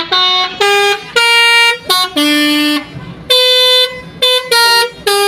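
Basuri telolet multi-tone air horn on a tour bus playing a loud tune: a run of about ten short held notes stepping up and down in pitch, with brief breaks between them.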